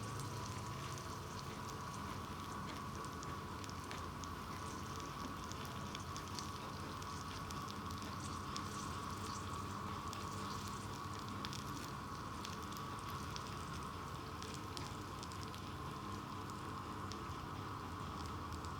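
Pork belly and vegetables sizzling as they grill: a steady hiss with many small scattered crackles.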